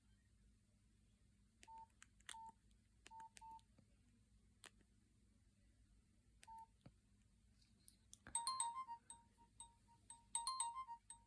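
Nokia 6136 mobile phone: a few short, single-pitched keypad beeps with faint key clicks, then about eight seconds in another preloaded ringtone starts, a fast repeating pattern of electronic beeps.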